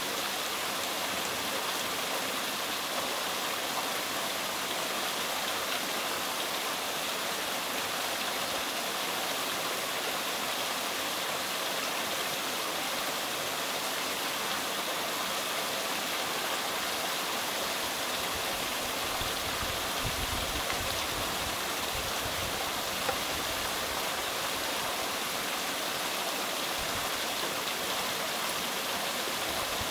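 Steady rushing noise like flowing water, unbroken throughout, with some low rumbling about two-thirds of the way in.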